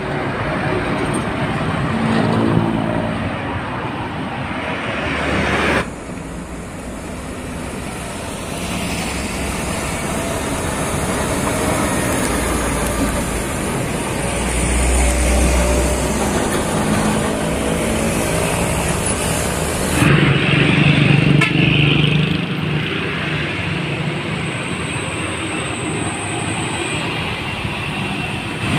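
Heavy diesel truck engine running as a MAN tractor unit hauls a lowboy trailer along the road, with deep rumble and passing traffic. The sound changes abruptly twice, about six seconds in and again about twenty seconds in.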